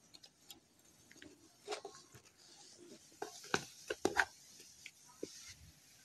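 Faint scattered clicks and light taps from hands handling plastic car door trim and the camera, loudest in a cluster of sharp clicks around three and a half to four seconds in.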